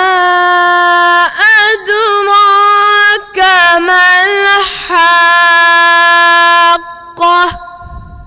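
A boy chanting Quranic recitation in the melodic tajweed style, holding long notes with wavering ornaments and taking short breaths between phrases; the chant stops shortly before the end.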